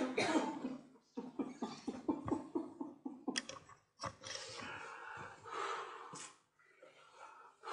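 A man breathing hard in distress: a run of quick, short catches of breath over the first few seconds, then long breathy gasps and exhalations.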